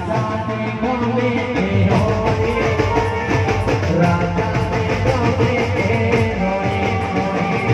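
Live amplified stage music: a man singing a Gujarati song into a microphone over a steady drum beat and a melody instrument.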